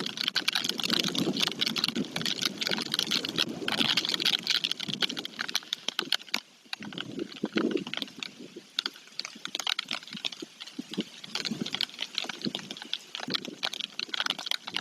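Rain falling, many small drop hits pattering in a dense crackle; it is heavier for the first several seconds and eases off after about seven seconds.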